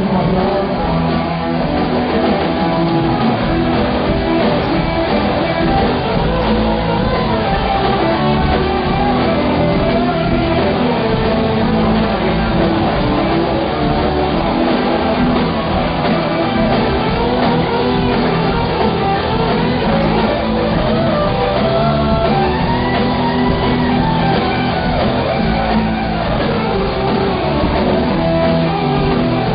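A live rock band playing, with electric guitars over bass and drums, loud and without a break.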